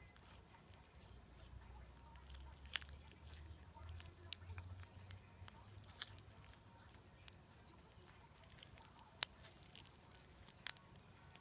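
Slime being squeezed and poked, giving faint, scattered little clicks and pops, one sharper pop about nine seconds in and a quick double pop near the end, over a low hum.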